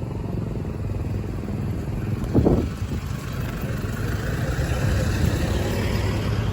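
Street traffic: a steady rumble of vehicle engines. A brief louder sound comes about two and a half seconds in, and a vehicle swells past in the second half.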